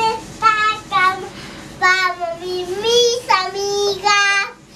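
A young child singing in a high voice: a few short notes, then longer held notes that slide in pitch.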